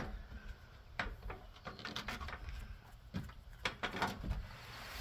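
Scattered light knocks and clunks, about half a dozen short separate hits, from parts or tools being handled during a fuel tank installation.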